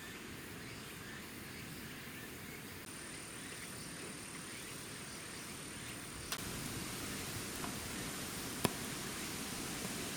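Steady outdoor background hiss with a thin, high, steady tone that comes in about three seconds in, and two sharp clicks later on, the second one louder.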